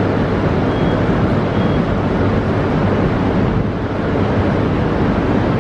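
Steady rumble and hiss of Shinkansen trains at the platform as a Yamagata Shinkansen Tsubasa train creeps in slowly to couple up. Two short high beeps sound in the first two seconds.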